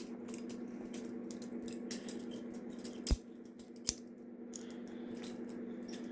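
Balisong butterfly knife being flipped: a run of quick metallic clicks and clacks as the handles swing around the blade and knock together, with two sharper clacks a little past halfway. A steady low hum runs underneath.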